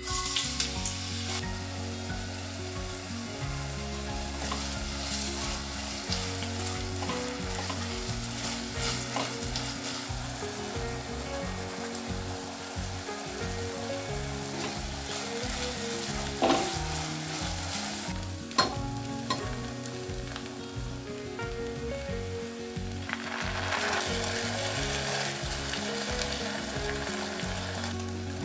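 Food sizzling and frying in hot oil in a pan: a steady crackling hiss that swells louder for the last few seconds, with two sharp clicks a little past the middle.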